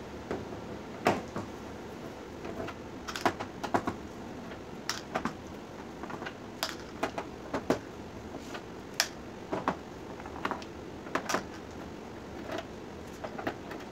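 Irregular sharp clicks and taps of a hand screwdriver working screws out of a TV's plastic back cover, with loose screws dropped into a plastic cup.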